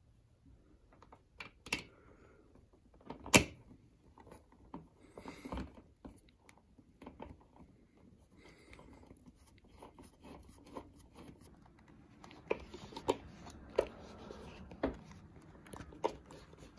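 Scattered clicks, knocks and rustles of hands handling things in a small room. The sharpest knock comes about three and a half seconds in, and a run of knocks comes near the end.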